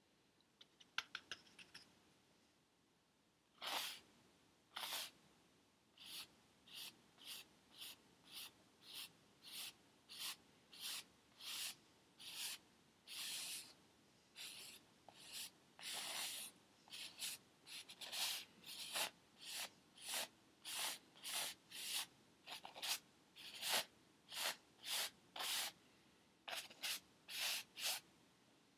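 Paintbrush scrubbing paint onto a stretched canvas in a long run of short strokes, a little under two a second. A few small ticks come about a second in.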